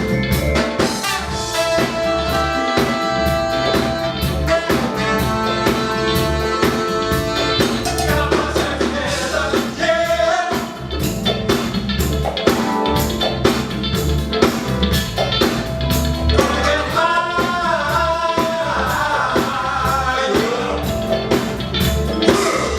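Live band playing funk on stage, with a drum kit keeping a steady beat under guitar and bass. A singing voice comes in about eight seconds in and again past the middle.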